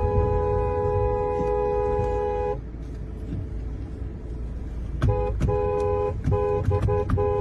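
Car horn with two notes sounding together, held for about two and a half seconds, then after a pause blown in a string of short, quick honks from about five seconds in, over the low rumble of road and engine noise.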